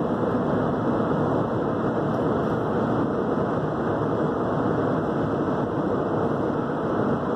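Steady rush of tyre and wind noise inside a car's cabin cruising at highway speed.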